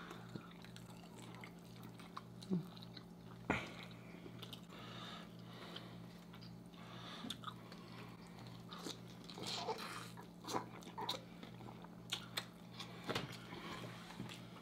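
Two people chewing and biting into birria tacos, with wet mouth sounds and small crunches that come more often in the second half, over a steady low hum.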